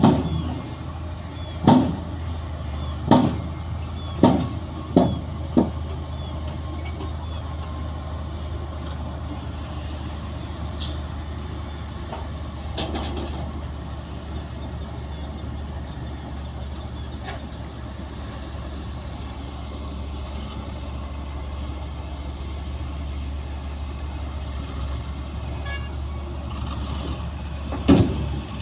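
Heavy diesel earthmoving machinery running steadily under a constant low drone, with a series of sharp metal clanks in the first six seconds and another loud clank near the end.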